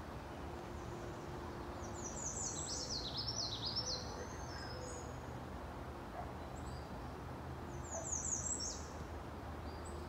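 A songbird sings two high phrases of quick down-slurred notes. The first starts about two seconds in and lasts about two seconds, and a shorter one follows near the end. Both sit over a steady low background hum.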